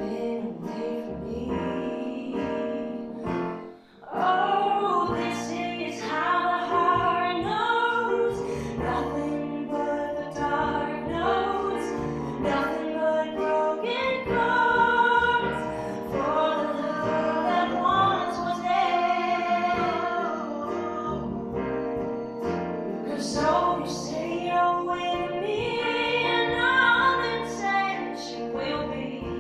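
A woman singing a ballad with a live acoustic band of upright bass, acoustic guitar and piano. The music breaks off briefly about four seconds in, then the voice comes back in.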